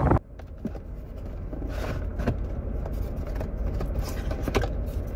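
Steady low rumble inside a car, with a few faint clicks and rustles scattered through it.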